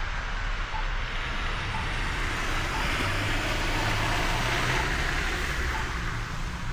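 Steady road and wind noise of a bicycle ride through snow, with traffic, swelling around the middle. A faint tick sounds about once a second.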